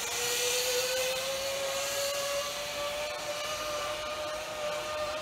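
A steady mechanical whine that rises in pitch until about half a second in, then holds, over a high hiss, like something running at speed.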